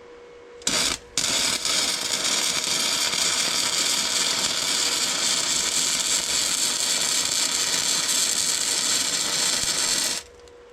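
MIG welder arc crackling: a short strike about a second in, a brief stop, then one steady bead of about nine seconds that cuts off near the end. The weld is laid on uncleaned metal.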